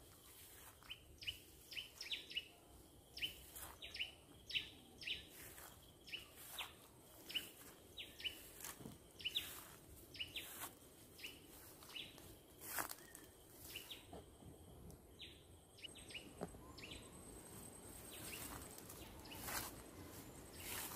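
Wild birds calling in forest: many short, quick downward chirps repeating throughout, with scattered rustles and soft steps of someone walking through long grass.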